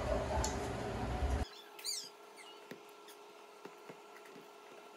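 Hands kneading corn masa dough in a stainless-steel bowl: faint soft squishes and scattered small clicks, with a brief high squeak about two seconds in. A steady background hum cuts out suddenly about a second and a half in.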